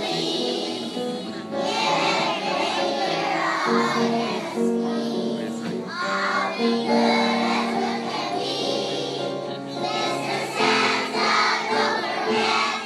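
A group of young children singing a Christmas song together over music accompaniment.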